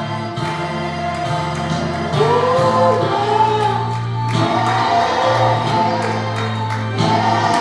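Gospel song sung by a choir with instrumental accompaniment, the voices holding long, wavering notes between lines over a steady bass.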